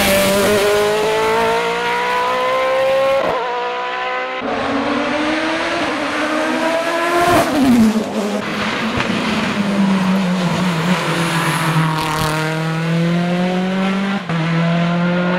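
Hill-climb race car engine at full throttle up the course, its pitch climbing in repeated sweeps through the gears. Around three to four seconds in the sweeps break for gear changes, about seven and a half seconds in the pitch drops sharply, and from about ten seconds it climbs again.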